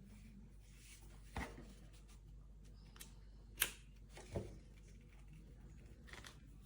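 A few light clicks and knocks, four in all, the loudest about three and a half seconds in, over a faint low hum.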